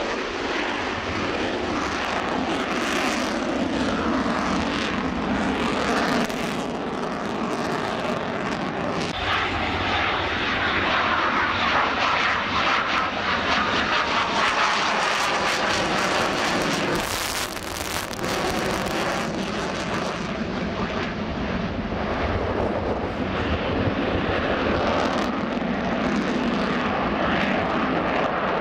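Eurofighter Typhoon's twin EJ200 turbofans with afterburners lit, as the fighter climbs away and passes overhead: loud continuous jet noise with a ragged crackle, loudest about halfway through.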